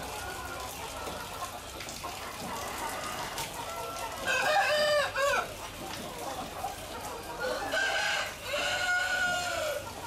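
Roosters crowing twice, once about four seconds in and again near eight seconds, each a long drawn-out call, over the continuous clucking and chatter of a large flock of chickens.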